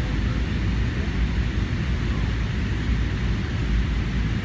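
Steady cabin noise inside a McDonnell Douglas MD-80 airliner in flight: an even low rumble of airflow and its aft-mounted Pratt & Whitney JT8D turbofan engines, heard from a seat near the front.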